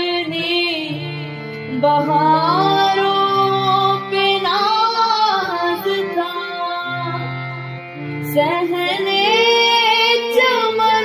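A song on Urdu verse: a voice sings winding, ornamented lines over sustained instrumental accompaniment, pausing briefly about eight seconds in before rising again.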